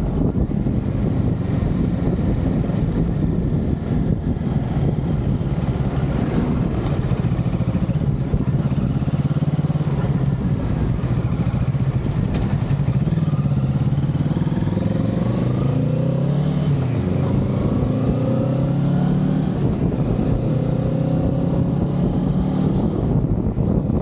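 Kawasaki Z650's parallel-twin engine running steadily under way. From about halfway through, its pitch rises and drops back several times as the revs climb and fall.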